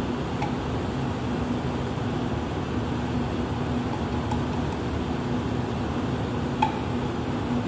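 Steady ventilation hum with a low held tone. A few small clicks come from a screwdriver working the adjuster of a dial pressure gauge, the sharpest about six and a half seconds in.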